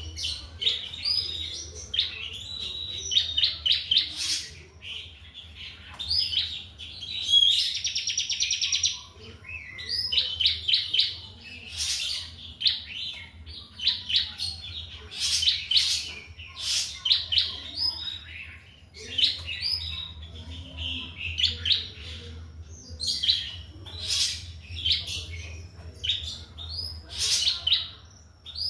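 A songbird singing a long, varied song of chirps, whistles and rapid trills, with a fast buzzy trill about eight seconds in. A low steady hum runs underneath.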